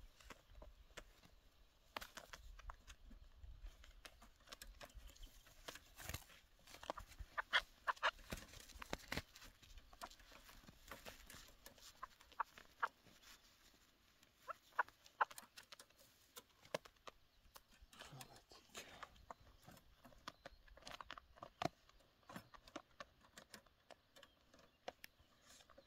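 Irregular light clicks, taps and rustles as a chukar partridge moves about in a small wire cage trap and is taken in hand.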